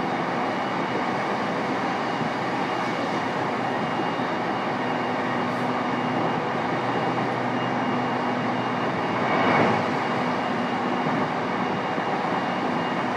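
Interior running noise of a JR East E233-3000 series electric train, heard in a motor car: a steady rumble of wheels and traction equipment with faint steady tones, swelling briefly about nine and a half seconds in.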